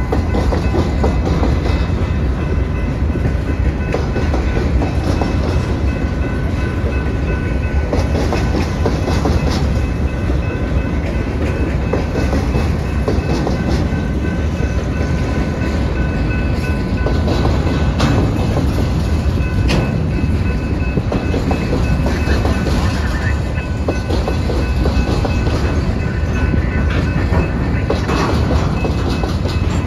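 Freight train of covered hopper cars rolling past at a level crossing: a steady, loud rumble of the cars, with the wheels clacking over the rail joints now and then.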